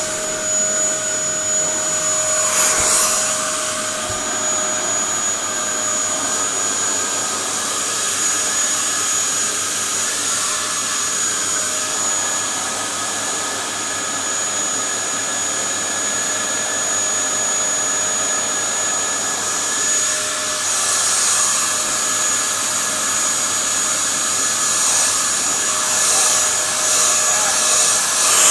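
Dyson upright vacuum cleaner running steadily: a rush of air with a high motor whine over it, which the owner calls a rough motor and a rough brush.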